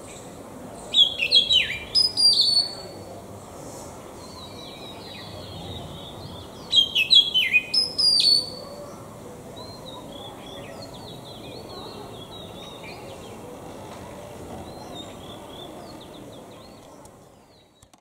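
Oriental magpie-robin singing: two loud phrases of clear whistled notes, many sliding down in pitch, a few seconds apart. Softer twittering follows the second phrase, and the sound fades out near the end.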